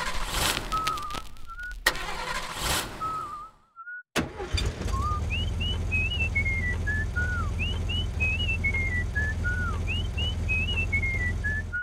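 Whistling over a steady low rumble like a running engine. Two wavering notes rise at their ends. About four seconds in, the sound briefly stops, then starts again sharply. After that, a short whistled phrase of quick rising chirps followed by a falling stepwise line repeats three times.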